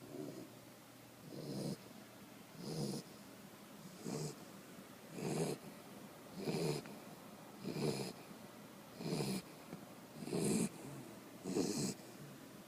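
Tri-colour corgi snoring in sleep, one short snore about every 1.3 seconds, each with a hissing edge.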